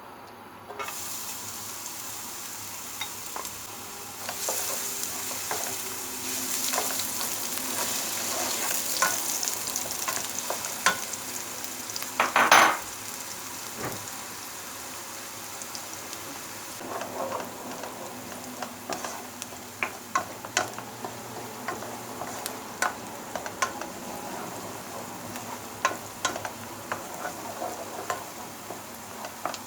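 Food sizzling and frying in a pan while being stirred, with a steady hiss and frequent clicks and scrapes of a utensil against the pan. A louder clatter comes about halfway through.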